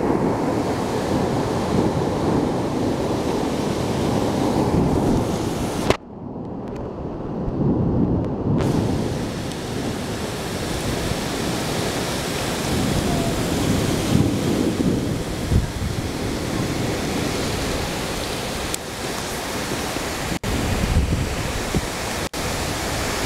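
Heavy rain pouring down with strong wind gusting through the trees: a dense, steady rushing wash that swells and eases every few seconds. A sharp click comes about six seconds in.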